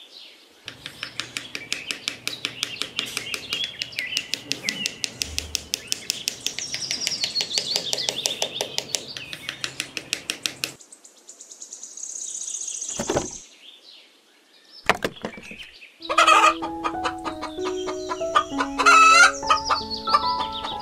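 Chickens clucking in a rapid, steady run for about ten seconds, then a pause with a few short high sounds. Background music with a melody comes in about two-thirds of the way through.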